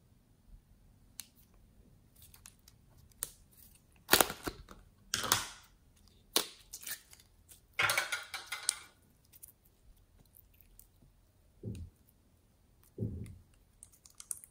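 Thick glossy slime being handled and squeezed: sticky clicks and squelches, with a dense stretch of crackling air-bubble pops about halfway through. Near the end come two duller, lower squelches as the pink slime is pressed down into the tub of mixed slime.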